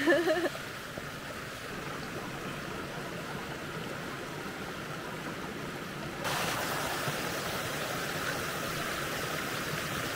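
Shallow mountain stream running over rocks: a steady rush of water that steps up in loudness about six seconds in. A brief voice-like sound comes at the very start.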